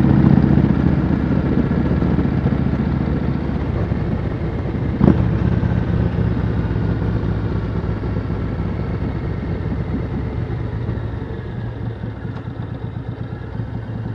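Yamaha Road Star V-twin motorcycle engine running on the road, slowly getting quieter as the bike eases off. There is a single sharp click about five seconds in.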